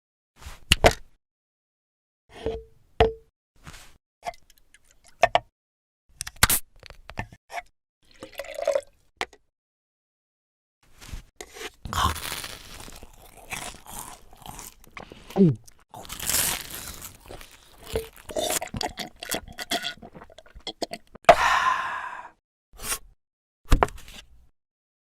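Sound effects for stop-motion food play: a string of short separate clicks and taps, then about ten seconds of denser crunchy, liquid-like sounds with sharp clicks in among them, and a few last taps near the end.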